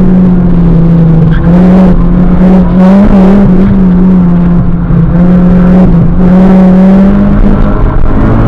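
Honda Civic Si's 2.4-litre four-cylinder engine running hard at high revs on track, loud in the cabin. The engine note holds fairly steady, with short dips in revs about every one to two seconds, and the sped-up upload raises its pitch.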